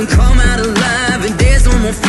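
Background song with a sung vocal over a deep bass that drops in pitch twice.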